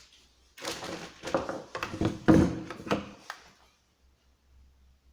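Handling noises: a quick run of knocks, clunks and rustles lasting about three seconds, as things are lifted and set down during the unboxing.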